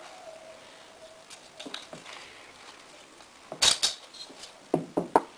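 Perforated metal filter basket being handled as its damaged filter cloth is pulled off: light rustling of the cloth, a pair of sharp clinks about three and a half seconds in, then three quick metallic clinks with a short ring near the end.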